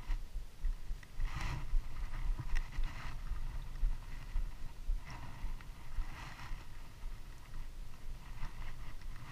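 Low rumble of wind buffeting the microphone, with a few short rustling bursts from gloved hands and clothing as the bait and fishing rod are handled.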